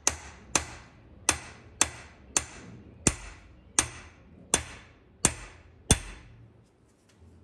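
Light hammer taps on steel fuel-pump parts clamped in a vise: about ten evenly spaced, ringing metallic strikes, roughly one every 0.7 seconds, seating the spring and cup of the high-pressure fuel pump. The taps stop about six seconds in.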